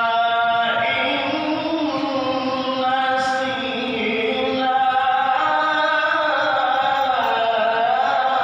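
A man's solo melodic Qur'an recitation (tilawah) into a handheld microphone, sung in long held notes that change every second or two and bend slowly in pitch near the end.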